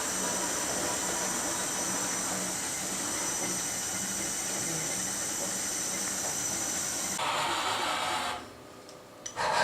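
Fadal 4020-HT vertical machining center running: a steady hiss with a thin high whine and a low hum. The sound changes about seven seconds in, drops away about a second later, and a single click follows near the end.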